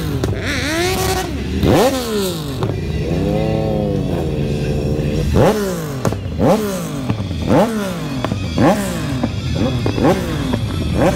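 Motorcycle engines revving and pulling away, the engine pitch rising sharply and dropping back again and again, about once a second, with one engine held at steady revs for a couple of seconds near the middle.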